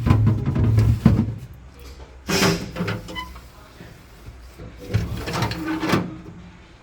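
Refrigerator doors and drawers being handled, opened and shut: a run of knocks with a sharp knock about a second in, and more handling noise twice later.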